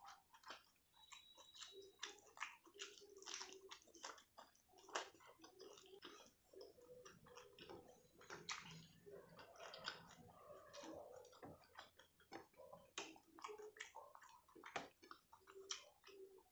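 Soft, close-miked mouth sounds of someone chewing rice and dal: many small irregular wet clicks and smacks, with fingers squishing rice into dal on a plate.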